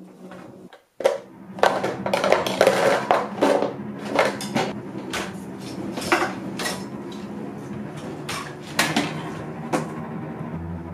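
Metal pots, pans and lids clattering and clanking as they are rummaged through in a kitchen drawer: a busy run of knocks starting about a second in, thinning out near the end.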